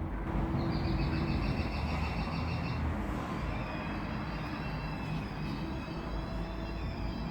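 Outdoor city noise: a steady low rumble. Over it, a high-pitched, rapidly pulsing squeal comes in about half a second in and lasts about two seconds, and high thin tones return from about three and a half seconds in.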